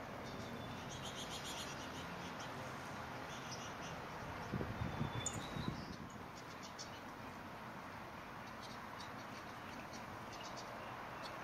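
Lesser goldfinches giving short, high chirps in scattered quick runs over the steady trickle of a bubbling fountain birdbath. A brief run of low thumps comes about four and a half seconds in, the loudest sound.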